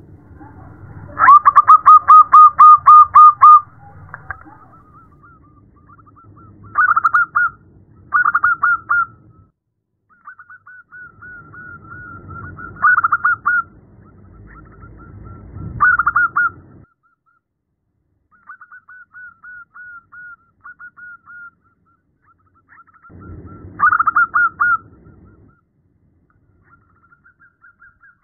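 Zebra dove (perkutut) cooing: repeated bursts of quick staccato notes, the loudest a run of about ten notes in the first few seconds, with fainter trills between the bursts and a low rumble under several of them. The uploader presents the call as a female zebra dove calling to a male.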